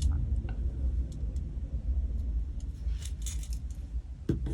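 Small plastic beads clicking and clinking as they are handled and threaded onto beading wire, a few scattered clicks with a cluster about three seconds in, over a steady low rumble.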